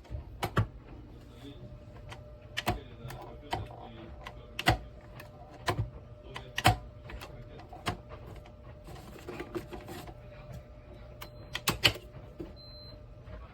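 Irregular clicks and knocks of hard objects being handled, about one or two a second, over a faint steady hum.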